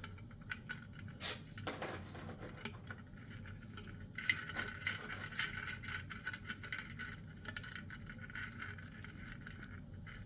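Faint, irregular clicks and clinks of small metal hardware being handled: a horn's mounting bracket and nut being fitted.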